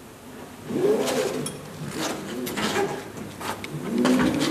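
Knocks and clicks of footsteps and strap hooks on the aluminium wheelchair ramp of a converted Volkswagen Caddy as the front restraint straps are drawn out of their retractors, just released by their electric lock. A low tone that rises and falls sounds about a second in.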